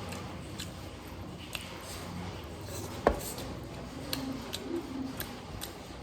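Close-up eating sounds at a meal: a string of short sharp clicks and crunches, with one loud click about three seconds in.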